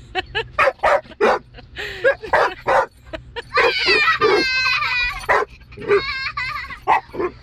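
Dog barking in quick, high yips as it goes for the moving windshield wipers. About halfway through it breaks into a long, wavering high whine, and a shorter one follows a little later.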